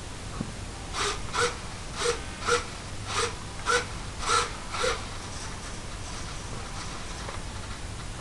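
Radio-control model servos driven back and forth in quick strokes: eight short bursts in loose pairs over the first five seconds, over a steady hiss that carries on after they stop.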